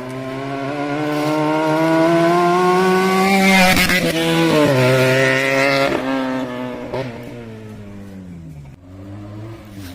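Benelli TNT 300 motorcycle engine revving up, its pitch climbing for about three seconds before a quick drop. The pitch holds briefly, then falls away as the engine slows, with a couple of sharp pops.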